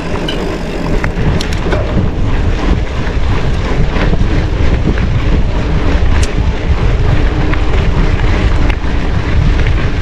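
Steady rumbling noise of a mountain bike being ridden: wind over the microphone and tyres running on the ground, with scattered small clicks and rattles.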